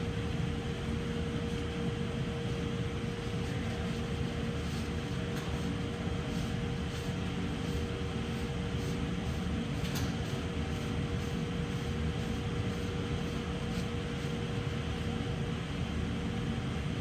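Steady mechanical hum of workshop background machinery, with a faint steady tone running through it. A few faint, sharp clicks sound over it.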